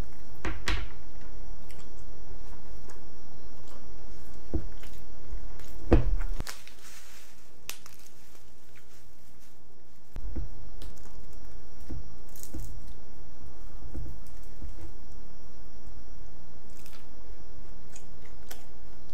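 A person chewing a mouthful of seaweed-wrapped rice, with scattered small clicks and soft low thumps.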